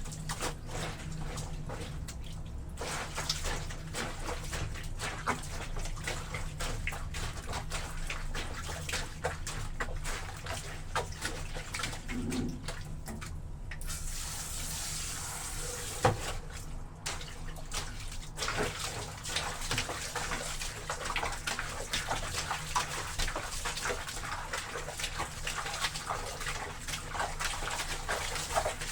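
Wet laundry being trodden underfoot in a basin of soapy water, a steady run of small irregular splashes and squelches, with one sharper knock about halfway through.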